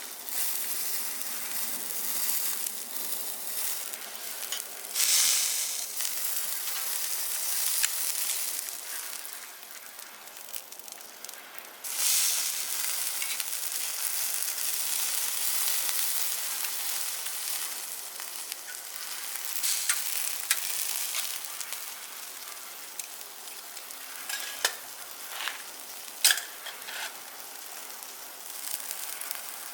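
Meat sizzling on a small stainless steel camping barbecue grill: a steady hiss that swells and fades, with a few sharp clicks in the second half.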